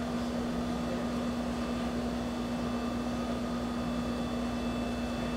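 A steady hum over an even hiss, with one constant low tone: room tone from a machine or electrical hum.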